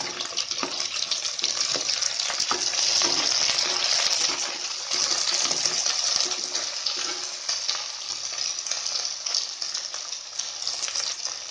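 Chopped onions sizzling as they fry in hot sesame oil, stirred in the pan with scattered clicks and scrapes of the spoon. The sizzling is loudest a few seconds in, then eases a little.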